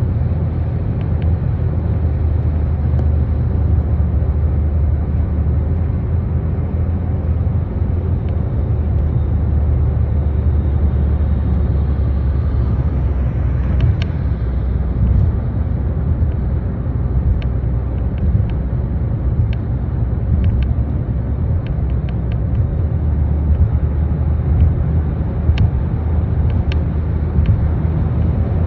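Steady low rumble of tyre and engine noise heard from inside a car cruising on a highway, with a brief swish about halfway through.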